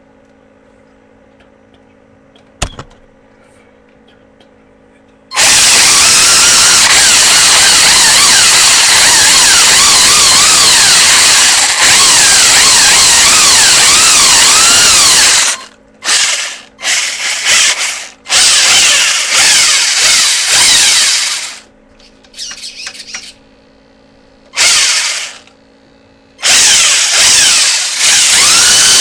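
Radio-controlled car's electric motor whining at full throttle, its pitch sliding up and down as it speeds and slows, for about ten seconds. Then it comes in short bursts with quiet pauses as the throttle is pulsed, and runs loud again near the end. A single click about three seconds in.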